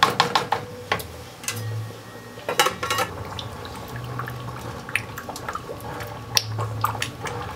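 Wooden spoon stirring thick tomato stew in a metal pot, with scattered clicks and knocks of the spoon against the pot and wet sounds from the sauce.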